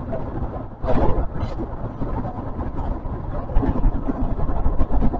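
Osaka Metro 400 series train running through a tunnel, heard from inside the car: a steady rumble of wheels on rail with scattered clicks and a louder clatter about a second in.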